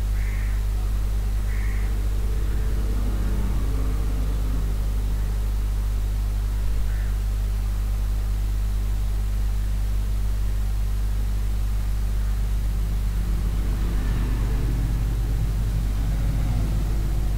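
Steady low electrical hum with an even hiss over it: the recording's background noise, with no speech or music. A few faint, brief high sounds come through now and then.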